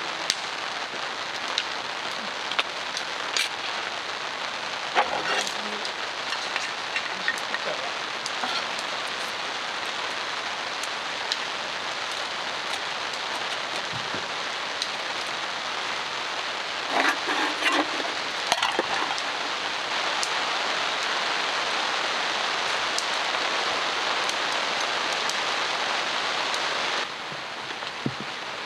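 Steady rain falling on a tent tarp, an even hiss with many scattered drops pattering on the fabric.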